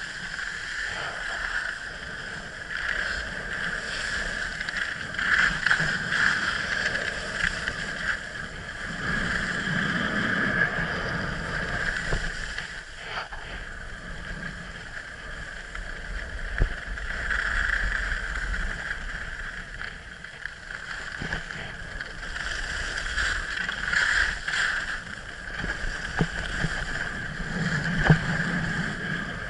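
Skis scraping and hissing over groomed snow on a downhill run, swelling and easing with each turn, with wind rushing over the microphone.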